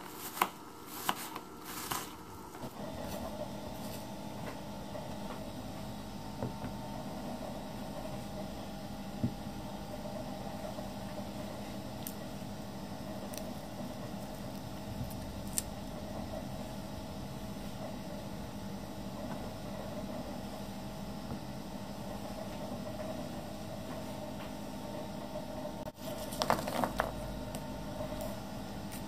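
A few knife chops on a plastic cutting board in the first couple of seconds, then a steady low hum. A short cluster of taps on the board comes near the end.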